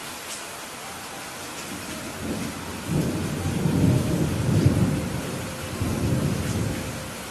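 Steady heavy rain with a roll of thunder that builds about two seconds in, rumbles loudest in the middle, and dies away near the end.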